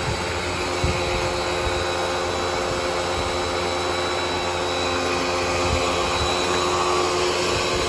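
Hyundai HYB80 pressure washer running steadily with a motor whine, its jet hissing as it sprays water through a foam cannon onto a car's side panels.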